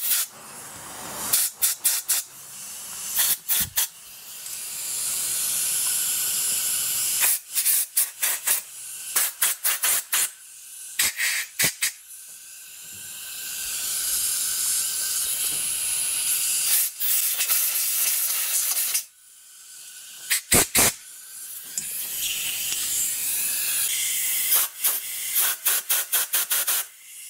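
Compressed-air blow gun hissing into a motorcycle carburetor's passages to blow them out. Long steady blasts alternate with runs of short rapid trigger bursts.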